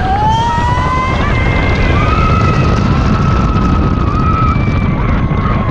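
Vekoma family roller coaster train running along its track with a loud, steady rumble. Long high-pitched wails rise at the start and then hold over it.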